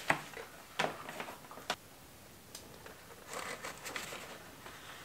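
Plastic seed-starting trays wrapped in plastic film being handled and set down on a counter: three light knocks in the first two seconds, then crinkling of the plastic wrap a little after the middle.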